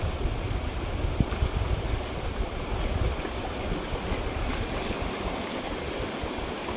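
A small stream running steadily over a shallow riffle. There is a low rumble on the microphone for the first three and a half seconds or so.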